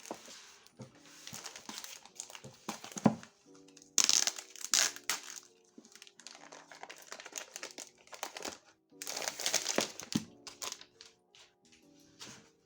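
Packaging crinkling and rustling as items are handled, loudest in two stretches about four and nine seconds in, over soft lo-fi background music.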